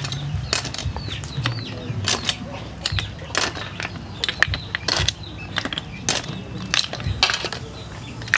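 Snail shells clicking and clattering against metal tongs and the pot as they are dropped one after another into hot water, with small splashes. The clicks are sharp and come at an irregular pace.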